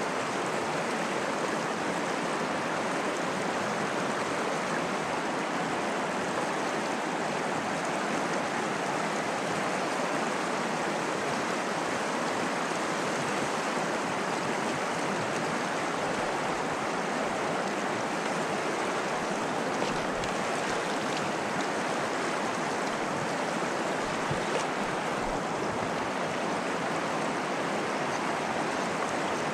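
Stream water rushing at a steady, even level.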